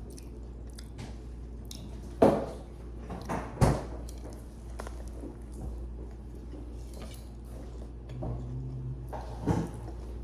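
Close-up eating sounds: chewing and biting into sandwiches, with two sharp, louder noises about two and three and a half seconds in, and a few softer ones later.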